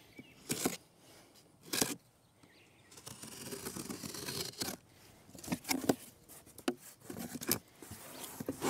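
A knife slicing through packing tape along the top of a cardboard box, a long scraping cut about three seconds in, followed by the cardboard flaps being pulled open with scrapes and rustles.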